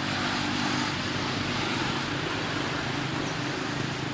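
A motor vehicle's engine running steadily, a low hum under an even outdoor hiss.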